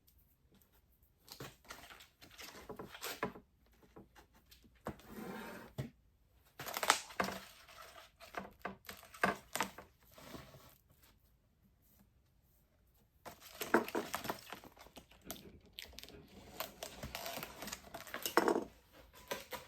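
Plastic window film crinkling and rustling as it is handled and cut, in irregular bursts with short pauses between them.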